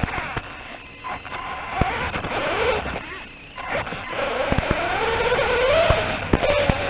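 Motor of a 1/16-scale RC car whining as it drives, its pitch rising and falling with the throttle. The whine drops away briefly about a second in and again past the middle. Scattered sharp knocks and clicks are heard along with it.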